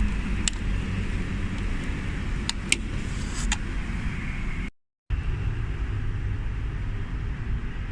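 A steady low rumble with a few short, light clicks in the first half, broken by a brief gap about five seconds in.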